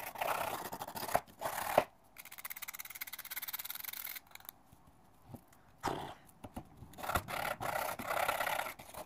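Knife blade scraping and gouging at a hard dig-kit block, in bursts. A steady, rapid rasping stretch comes in the middle.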